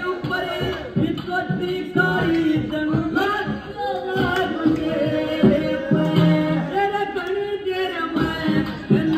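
Dance music playing: a song with singing over a steady drum beat.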